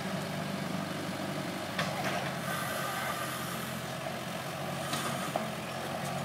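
Hyundai wheeled excavator's diesel engine running steadily under load as it digs, with a couple of short knocks from the bucket working the soil.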